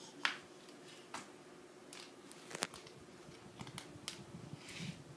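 A scattered series of light clicks and taps, the sharpest shortly after the start and about halfway through, with a short hiss near the end.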